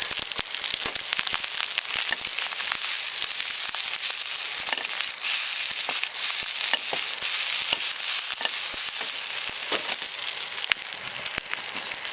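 Wood bonfire burning, crackling with many irregular sharp pops over a steady high hiss.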